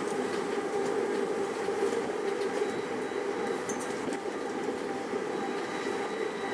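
Uijeongbu Light Rail rubber-tyred automated train heard from inside the car while running along its elevated guideway: a steady running noise with a constant humming tone over it.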